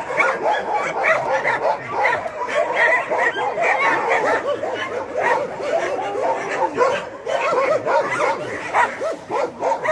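Many dogs barking at once, their calls overlapping in a continuous din.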